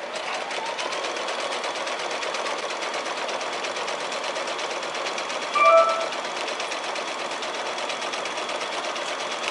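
Domestic sewing machine whining up to speed, then stitching steadily at a fast, even rate while sewing a serpentine stitch through a quilt block. A short, louder tone cuts in about six seconds in.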